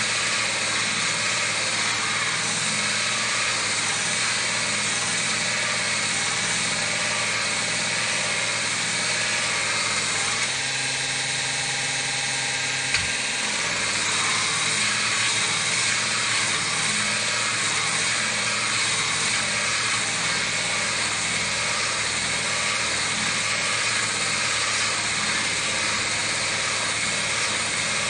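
An electric power-tool motor runs steadily with a grinding hiss. The tone shifts about ten seconds in, and there is a single knock a few seconds later.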